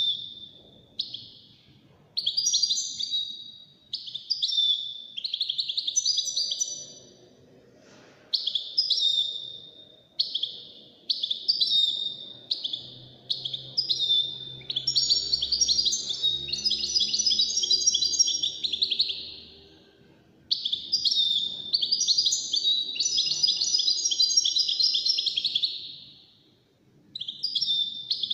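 A caged European goldfinch singing in high, fast, twittering phrases. First come short bursts with brief pauses between them, then two long run-on phrases of several seconds each in the second half.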